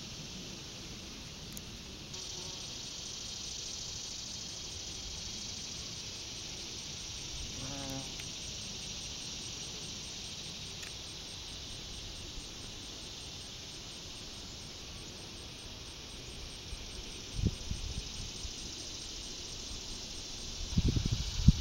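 Steady high insect chorus drone of a summer meadow, with a short pitched call about eight seconds in. Loud low thumps on the microphone come twice near the end.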